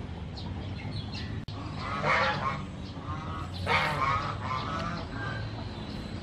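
Two loud bird calls about two seconds apart, with a few fainter calls between and after, over a steady low hum.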